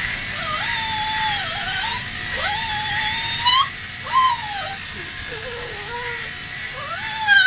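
A small dog whining and yowling in wavering, sliding cries over the steady buzz of electric dog clippers, which eases about three and a half seconds in.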